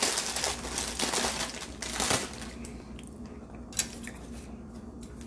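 Crunchy chewing of a saltine cracker topped with sardines, loudest and densest in the first two seconds, then settling into quieter chewing. A single sharp click comes about four seconds in.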